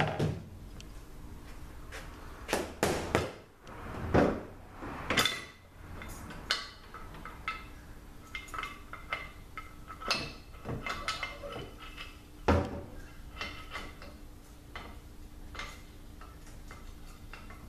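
Cast-aluminium extension housing of an RE7R01A seven-speed automatic transmission being worked loose, pulled off and set down on a metal workbench: irregular metallic clanks, knocks and scrapes, with several sharper knocks among them.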